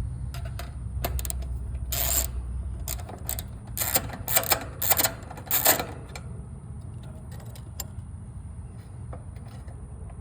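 Metal clicks, taps and rattles of hand tools working the mounting screw and strap of an air conditioner condenser's capacitor. A cluster of sharp rattles comes between about two and six seconds in.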